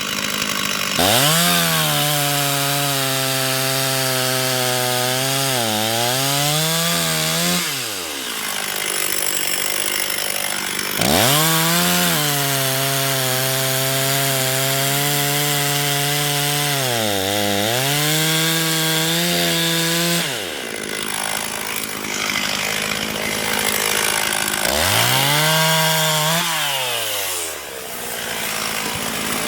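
Two-stroke chainsaw revving up and cutting through firewood logs three times, its engine pitch sagging under load partway through each cut and falling back between cuts. The logs are birch and harder hardwood of about the same size, and the hardwood cuts more slowly.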